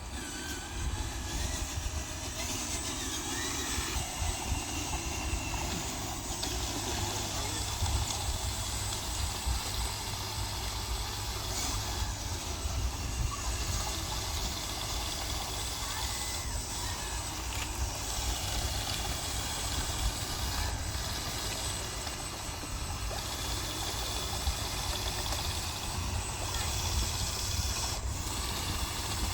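Small motor running steadily, with a constant low rumble underneath.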